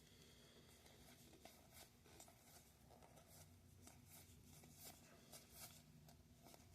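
Near silence, with faint rustles and light clicks of trading cards being handled and flipped through.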